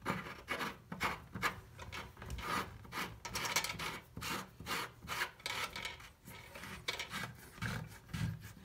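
Metal retainer ring being threaded by hand onto a Delta single-handle faucet body: a run of short, irregular scraping strokes as metal rubs on metal.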